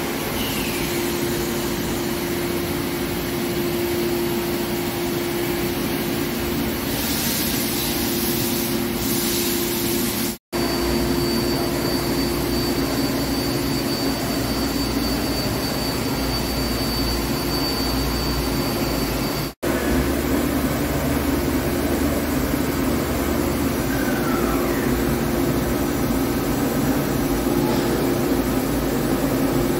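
Hankook PROTEC-9NC heavy-duty CNC lathe running with a steady machine hum and a held tone. The sound drops out abruptly for a split second twice, about ten and twenty seconds in.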